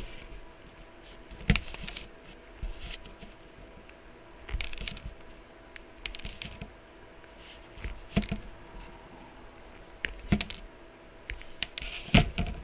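Scattered light clicks, taps and short scrapes from handling a soldering iron, solder and a small circuit board while excess solder is cleared from the joints. A faint steady hum runs underneath.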